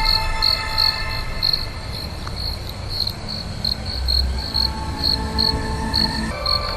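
Crickets chirping in a steady pulse, about two to three high chirps a second. Held tones of background music fade out within the first two seconds and come back near the end.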